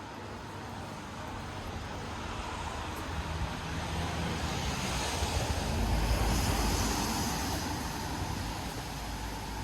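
A car passing on the street, its engine and tyre noise swelling to a peak about six seconds in and then fading.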